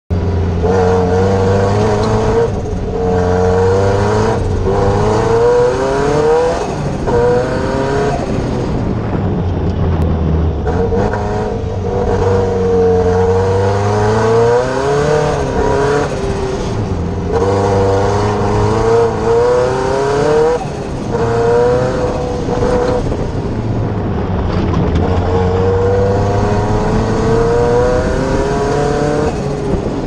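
Cosworth engine of a Fiesta Proto off-road racer, heard from the cockpit, revving hard. The pitch climbs and then drops at each gear change, every few seconds.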